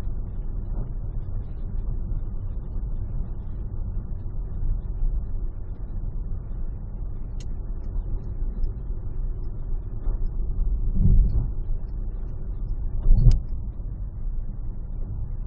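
Steady low rumble of a car cruising on a freeway, heard from inside the cabin, with two louder low thumps about 11 and 13 seconds in.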